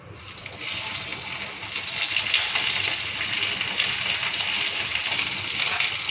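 Chopped onion and capsicum sizzling as they fry in hot ghee in a pan, the sizzle building over the first second or two and then holding steady.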